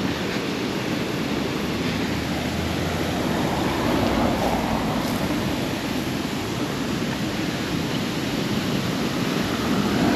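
Steady rush of flowing water from a stream spilling over a small weir or sluice, an even noise without breaks.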